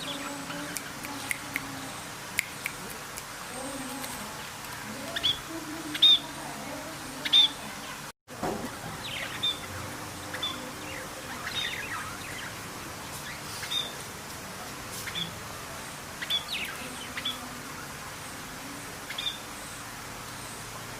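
Birds chirping: short, high chirps scattered irregularly over steady background noise, with the loudest pair around six and seven seconds in and a brief break just after eight seconds.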